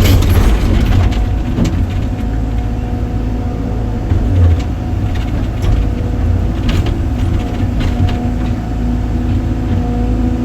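A heavy machine's engine running steadily under load, with scattered clanks and knocks over it.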